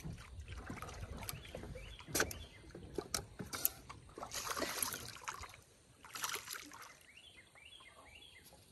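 Water splashing and lapping at the side of a small fishing boat as a hooked spotted gar fights beside it, with several sharp knocks on the hull in the first half and two hissing splashes past the middle.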